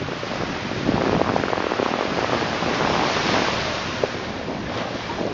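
Ocean surf washing onto the beach, swelling about a second in and easing after about three seconds, with wind buffeting the microphone.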